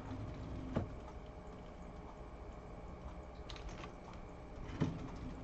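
A few separate keystrokes on a computer keyboard, sparse clicks over a low steady background hum.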